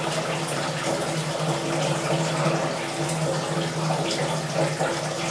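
Water running and splashing steadily as the pump floods an aquaponic grow bed, over a steady low hum from the running pump. The loop siphon is filling but has not yet started to drain.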